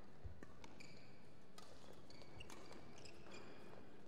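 Faint badminton rally: racket strikes on the shuttlecock as scattered light clicks, mixed with short high squeaks of shoes on the court.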